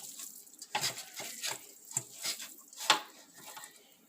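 Hands breaking up wet, part-cooked ground beef in a dish: a handful of irregular clicks and knocks, the loudest about three seconds in.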